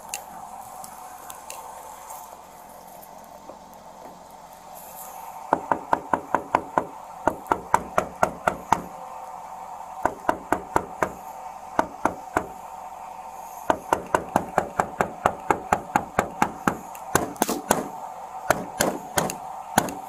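A hand knocking on a car's side window in three runs of quick raps, about four a second, starting about five seconds in, to rouse a driver asleep behind the wheel. A faint steady hum sits underneath.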